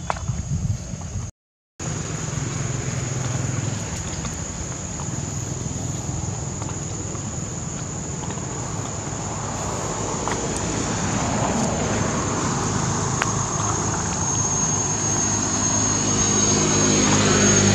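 An engine running in the background, slowly getting louder toward the end, over a steady high-pitched insect drone. The sound cuts out completely for a moment about a second and a half in.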